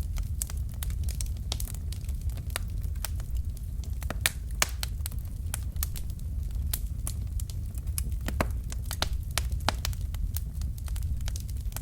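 Wood fire burning in a fireplace: a steady low rumble of flames with many irregular sharp crackles and pops from the burning logs.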